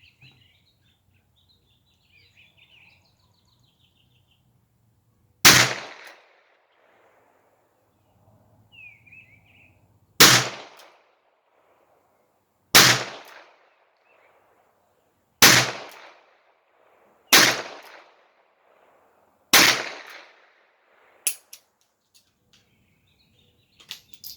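Six shots from a Smith & Wesson Model 17-3 .22 LR revolver, the first about five seconds in and the rest every two to three seconds, each a sharp crack with a short echo tail. A faint bird chirp comes between the first two shots, and a small click follows the last shot.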